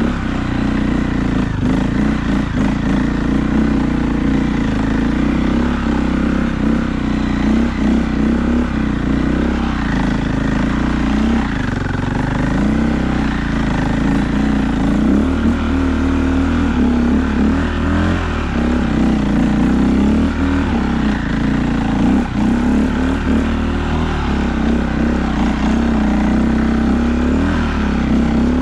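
2001 KTM EXC 400 dirt bike's four-stroke single-cylinder engine running, its pitch wavering up and down with the throttle.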